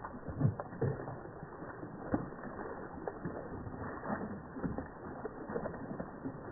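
Koi splashing at the surface of a pond as a crowd of them thrashes together, a run of irregular small splashes and slaps of water.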